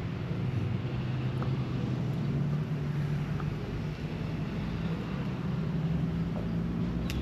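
A vehicle engine running with a low, steady hum that shifts slightly in pitch.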